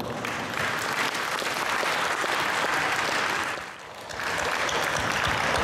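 Audience applauding in a hall: a dense, steady clatter of many hands clapping, which dips briefly about three and a half seconds in and then picks up again.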